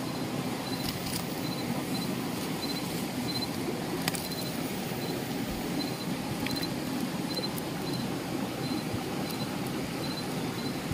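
Steady rush of river water, with a faint high chirp repeating in short groups and a few light clicks as the net is handled on the pebbles.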